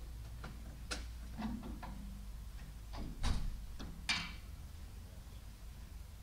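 Sparse light clicks and knocks over the low hum of a quiet snooker hall. The loudest is a dull knock a little past three seconds, followed about a second later by a short scuff.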